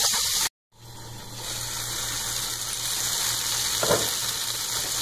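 Onions, tomatoes, garlic and cashews frying in oil in a pot over high heat: a steady sizzling hiss that cuts out for a moment just after the start and builds back up. A single short click about four seconds in.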